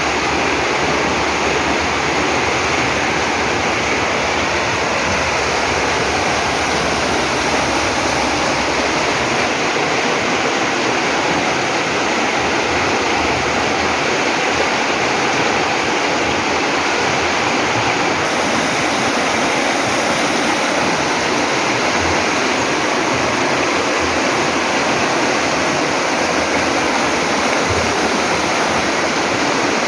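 Water of a river rushing steadily, a continuous loud rush with no breaks.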